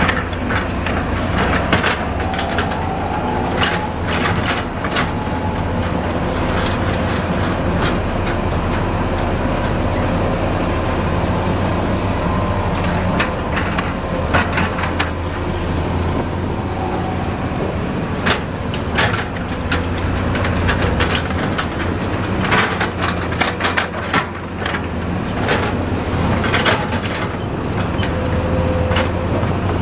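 Heavy construction machinery running, its diesel engines droning steadily, with repeated sharp metallic clanks and knocks throughout.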